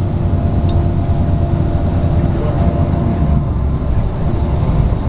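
Steady low rumble of a moving vehicle heard from inside its cabin, with a faint steady hum that stops a little past halfway.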